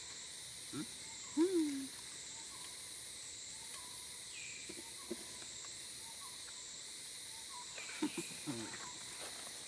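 A steady high insect drone that wavers up and down about once a second, with a short low hoot-like call about a second and a half in and a few brief low calls near the end.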